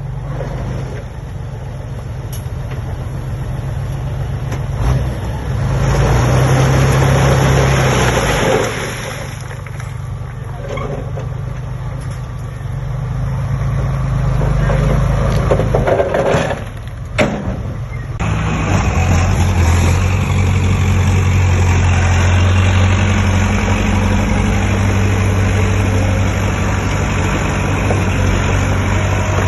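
Diesel engines of heavy earthmoving equipment, a bulldozer and a dump truck, running at work. The engine note rises and falls several times, dips briefly past the middle, then settles into a steady, heavier run.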